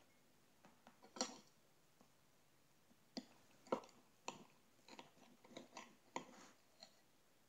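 Metal knife and fork clinking and scraping on a plate while cutting pancakes: one louder clink about a second in, then an irregular run of short sharp clicks for several seconds.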